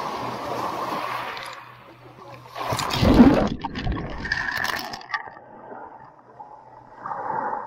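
Small waves breaking on a pebble shore and washing over a camera at the waterline. The loudest surge comes about three seconds in, deep and muffled as the water covers the microphone, followed by scattered clicks and rattles of pebbles as it drains back; another wash arrives near the end.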